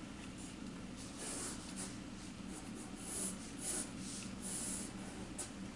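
Graphite pencil scratching on drawing paper in a run of short, soft strokes.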